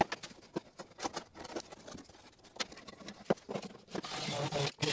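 Scattered light clicks and taps of a marker and metal rule being handled against a truck's bare sheet-metal floor pan while a cut line is marked out. About four seconds in, a louder steady noise starts.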